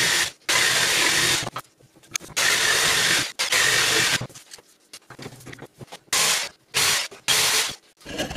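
Electric jigsaw cutting a strip of old parquet wood, running in several bursts of about a second each with short pauses between them.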